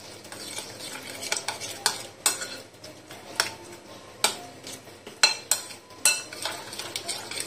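Metal spoon stirring a wet spice-paste marinade in a glass bowl, with irregular scraping and sharp clinks of the spoon against the glass.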